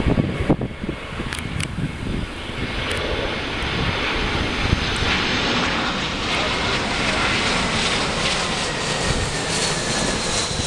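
Airbus A320-family jet airliner on final approach with gear down, passing low overhead: its engine noise grows louder from about three seconds in and holds as a steady rush with a high whine. Wind buffets the microphone in the first second or so.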